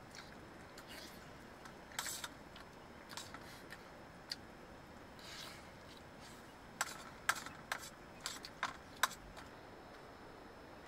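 Sounds of people eating a meal: scattered small sharp clicks and clinks of a spoon and fingers against steel plates, with mouth sounds. A few come about two seconds in, then a quicker run of about six near the end.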